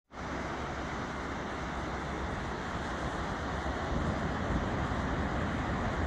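Steady noise of ocean surf breaking and washing up the beach, with wind buffeting the microphone.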